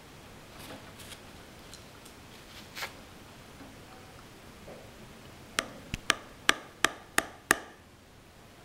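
A knife cutting a piece from a soft milk-soaked caramel cake in its dish. A few faint soft taps come first, then, about five and a half seconds in, a quick run of about seven sharp clicks in under two seconds as the blade strikes the bottom of the dish.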